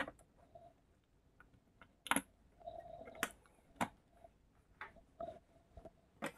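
Irregular light clicks and taps, about a dozen, of hands handling a TV's panel and small parts during reassembly.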